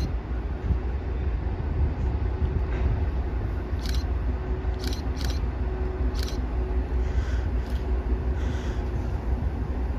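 Train running with a steady low rumble and a faint steady hum, with several short sharp clicks in the middle.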